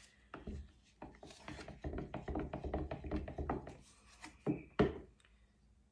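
Wooden stir stick scraping and clicking against the sides of a plastic pitcher while stirring thick white pillow paint, a quick run of scrapes with two sharper knocks near the end before it stops.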